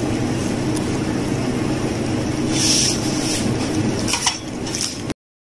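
Steady low hum of background noise, with brief rustling, crunching bursts about two and a half seconds in and again near the end as a grilled khubz flatbread wrap is bitten and chewed. The sound cuts off abruptly just before the end.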